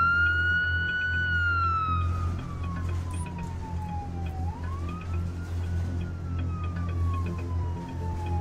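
Ambulance siren wailing. The pitch falls slowly and then sweeps quickly back up, about once every four seconds, over a steady low hum.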